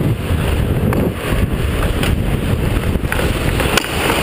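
Wind rushing over a helmet-mounted GoPro's microphone as the wearer skates hard up the ice, a steady rumble and hiss with a single sharp click near the end.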